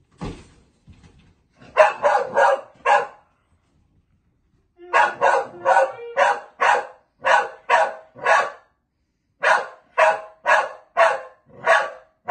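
Dog barking in quick volleys: a burst of four barks about two seconds in, then two longer runs of rapid barks, about three a second, separated by a short pause.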